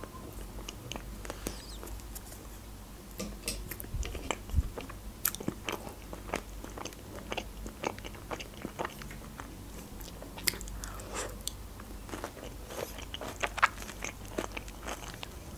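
A person chewing food close to the microphone, with many small crisp clicks and crunches from the mouth.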